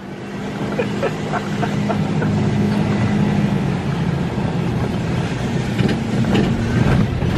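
A car's engine and tyres running steadily at low speed on a rough, narrow lane, heard from inside the cabin as a low drone with road noise. A few light knocks come through as it goes over bumps.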